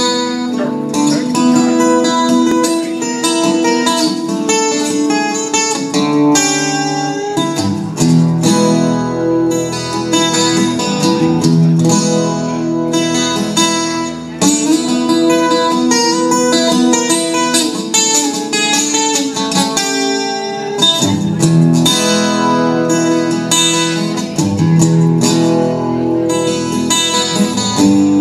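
Guitar playing an instrumental introduction: rhythmic chords with repeated plucked attacks, and no singing yet.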